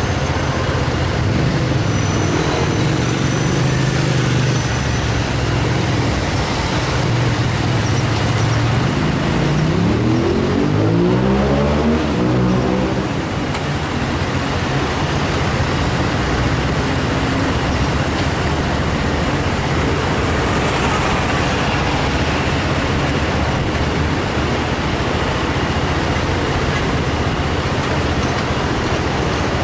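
City street traffic: a steady low engine hum runs throughout, and a vehicle accelerates with a rising engine note from about 9 to 13 seconds in.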